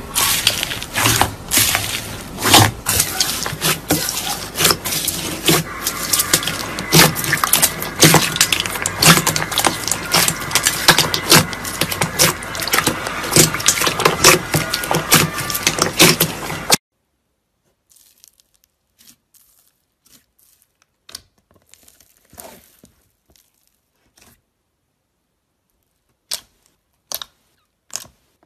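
Slime being pressed and poked by hand: dense, loud crackling and clicking of foam beads and air pockets. About two-thirds of the way through it cuts off suddenly to quiet, scattered small pops and clicks.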